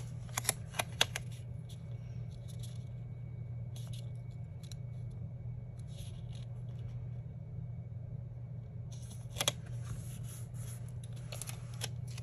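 Paper stickers being peeled from a sticker book and pressed down onto a planner page. Light rustling and crinkling, with a few sharp clicks and taps in the first second, one about three-quarters of the way in, and a cluster near the end. A low steady hum runs underneath.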